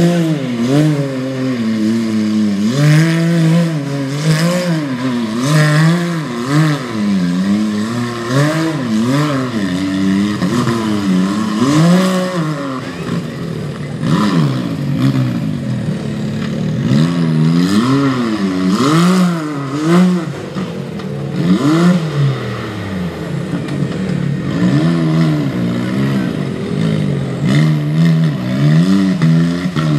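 A UTV's engine revving hard and dropping back again and again, rising and falling in pitch every second or two, with knocks and scraping from the machine working over rock.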